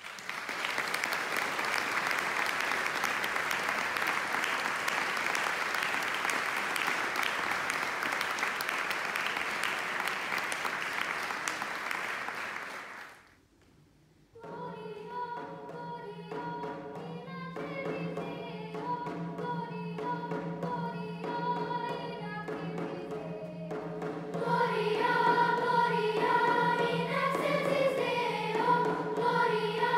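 Audience applause that dies away after about thirteen seconds; after a short pause a youth choir begins its next song, voices moving over a steady low note held underneath, and the singing grows louder about ten seconds after it starts.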